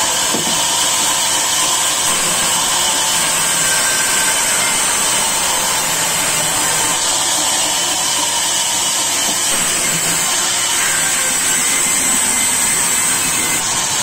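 Sawmill saw machinery running steadily: a constant high whine over a loud hiss, with no rise or fall in load.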